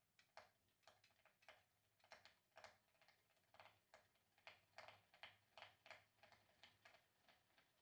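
Faint, regular ticking from a ceiling-mounted Porsche 911 flywheel as a falling weight unwinds its string and spins it up, heard once per turn or so. The ticks come steadily faster, from about three to about five a second, as the flywheel gathers speed.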